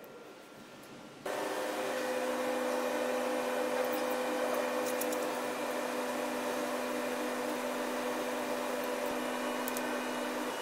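Steady hum of a laboratory analyser's motor or fan, a low drone under a higher steady tone, starting abruptly about a second in. A few faint light clicks as metal sample cups are handled in its sample changer.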